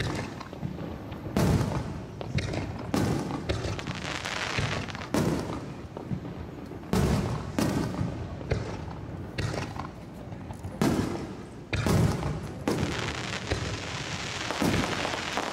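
Aerial firework shells bursting one after another, a boom every second or two at irregular intervals, each followed by a low rumbling echo. Between some of the booms comes a dense crackling fizz.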